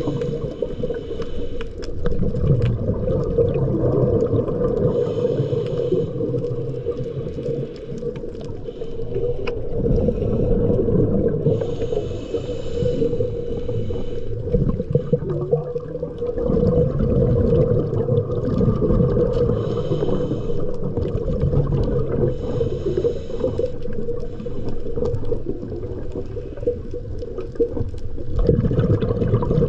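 Underwater sound of a diver's breathing: a burst of bubbling exhaled air every five to seven seconds over a steady low hum and rumble.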